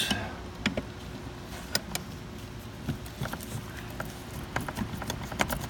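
Scattered light clicks and clinks from a wrench being worked on a metal AC line fitting, with a short rustle at the start, over a low steady background hum.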